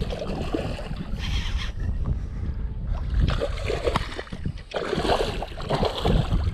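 Wind rumbling on the microphone, with irregular scuffing and knocking noises now and then.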